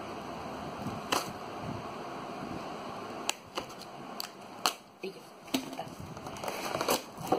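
A delivery box and its packaging being handled while it is unpacked: scattered light clicks and knocks over a steady faint hiss.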